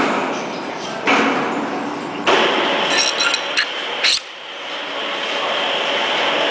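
Steel extruder spindle parts clinking and knocking lightly as they are handled and fitted, a few short clinks about halfway through, over a steady background hiss.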